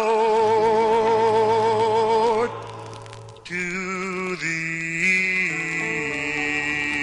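Closing bars of a 1960 doo-wop ballad record. A male voice holds the song's last note with a wavering vibrato and stops about two and a half seconds in. After a short lull, a sustained closing chord of harmonised voices and accompaniment sets in, changes pitch a few times and is still ringing at the end.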